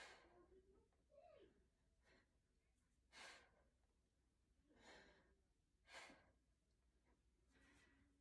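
Faint, forceful breaths out from a woman straining through half-kneeling kettlebell shoulder presses: four stronger ones and a few softer ones in between, one with a brief voiced sigh.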